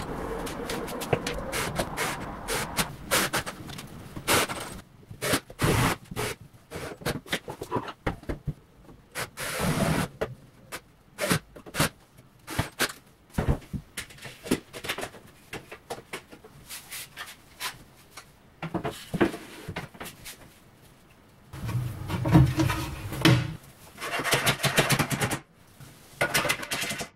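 Hand-work sounds of fitting an aluminium handle-less (Gola-type) kitchen profile under a countertop: a string of separate clicks, taps and knocks of metal parts and fixings, with a cordless screwdriver running in short spells near the end.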